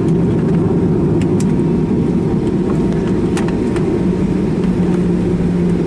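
Cabin noise inside a Boeing 737-800 taxiing after landing: a steady low rumble with a constant hum from its engines at idle, and a few faint clicks.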